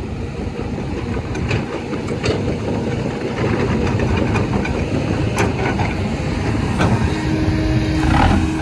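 Diesel engine of a loaded dump truck running under load on a muddy dirt track, with scattered knocks and clunks.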